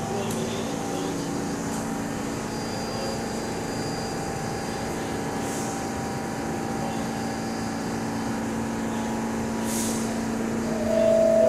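R46 subway train standing in the station with its doors open, its on-board equipment giving a steady hum with a constant drone. A short hiss comes about ten seconds in, and near the end the two-tone descending door chime begins, the signal that the doors are about to close.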